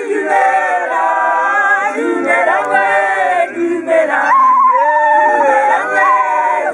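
A group of men and women singing together a cappella in harmony. About four seconds in, one high voice holds a long wavering note above the others.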